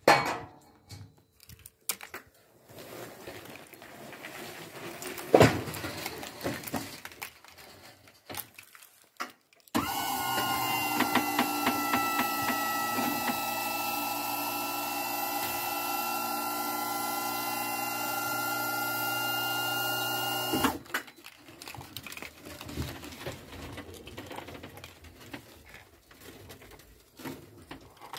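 Electric motor of a van's rear wheelchair platform lift running steadily for about ten seconds as it raises the platform, starting and stopping abruptly. Before and after it come scattered knocks and rattles as the power wheelchair moves onto the platform and into the van.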